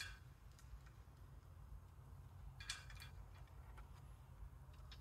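Faint metallic clicks of loosened manifold nuts and washers being worked off their studs by hand on a Ford Model A engine. There is a click at the start, a small cluster just under three seconds in, and a few fainter ticks between, over a low room rumble.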